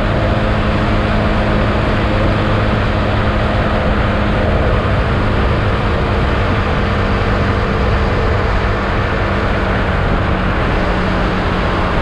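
Husqvarna Svartpilen 401's single-cylinder engine, on its stock exhaust, running steadily at cruising speed inside a road tunnel, with wind and tyre rush. The engine note drops slightly about halfway through.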